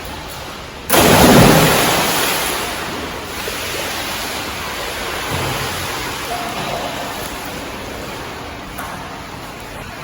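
A sudden loud splash about a second in as a swimmer pushes off into the pool, followed by water rushing and sloshing that slowly fades.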